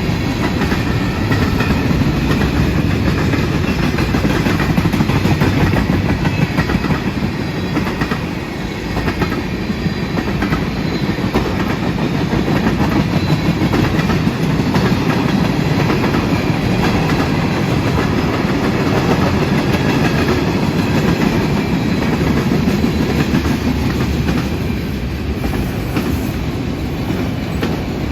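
A CSX freight train's cars rolling past fast, with the steady rumble and clickety-clack of wheels over rail joints.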